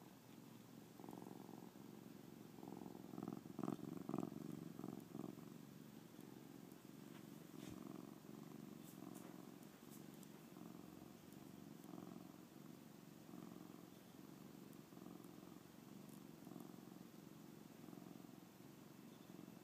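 Domestic cat purring close to the microphone, the purr swelling and fading with each breath a little more than once a second. A few louder knocks and rubs about three to five seconds in as the cat headbutts the phone.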